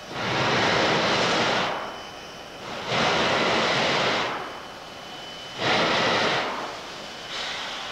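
Steam locomotive venting steam from its open cylinder cocks: three long hissing blasts about every two and a half seconds, with a shorter fourth one starting near the end.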